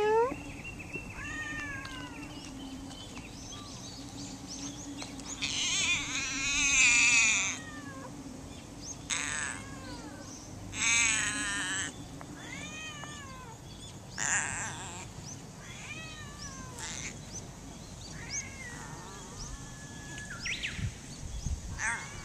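Stray tabby cat meowing over and over: short arching meows mixed with several long, wavering, drawn-out calls, the loudest about six to seven seconds in.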